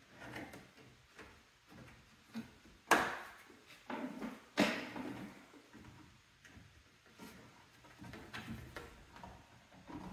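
Plastic push-pin fasteners being pressed into a plastic fender flare, giving a series of sharp clicks and knocks. The loudest comes about three seconds in.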